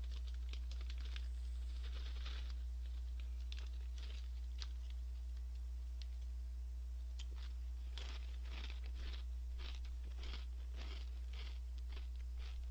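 A man chewing a mouthful of Orion Gorae-bap, small crisp whale-shaped crackers, with many short crunches in two spells: the first few seconds and again from about eight seconds in. A steady low electrical hum runs underneath.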